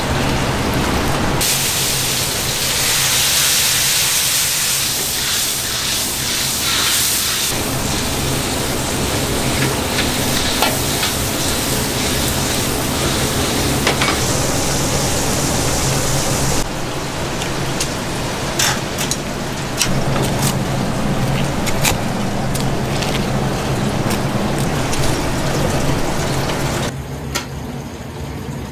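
Hot oil sizzling as food deep-fries in woks over gas burners, a steady hiss with a low hum underneath. A few sharp clicks sound in the second half, and the sizzle drops away near the end.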